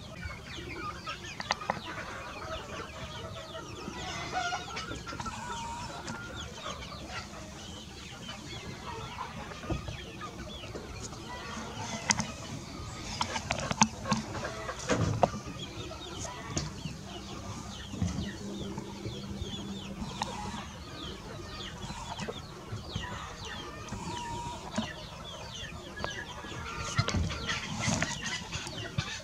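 Chickens clucking on and off in a farmyard, with a few louder calls.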